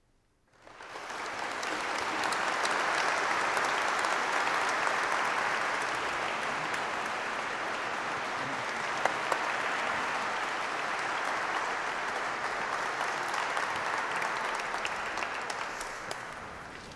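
Audience applauding, breaking out suddenly about half a second in after near silence and dying away near the end.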